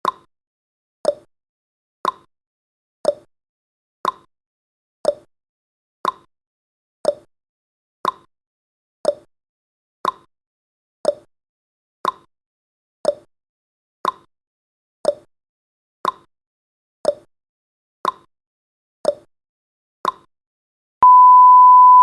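Countdown timer sound effect ticking once a second. About a second before the end, a long steady beep starts, marking that the countdown has reached zero.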